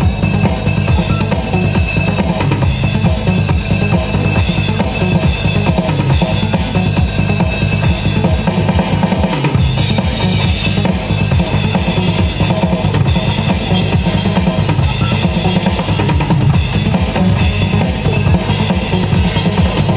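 Loud live band music driven by a drum kit, with bass drum and snare keeping a steady beat.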